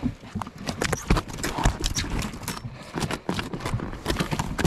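Irregular knocking and slapping: a freshly landed snapper flapping and thumping against the jet ski's hard plastic deck as it is handled.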